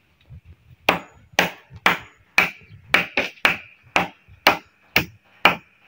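Wood struck hard and repeatedly, eleven sharp blows about two a second, starting about a second in.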